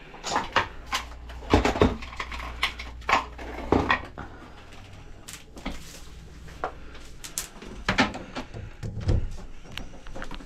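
Irregular knocks, bumps and clatter of handling around the kitchen sink, loudest in the first few seconds and again near the end, with a quieter stretch in the middle.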